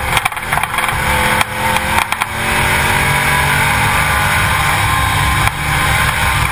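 Car engine running with tyre and wind noise, picked up by a camera mounted beside the front wheel; a few knocks in the first two seconds, then a steadier rumble.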